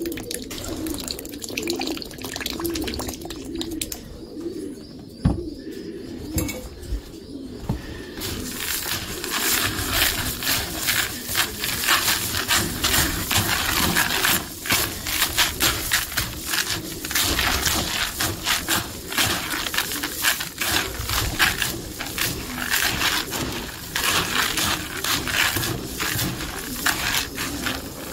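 A hand stirring a bucket of racing-pigeon corn mix (peas, maize and wheat) wet with a thick vitamin juice, the grain rustling and crackling densely from about eight seconds in. Pigeons coo throughout.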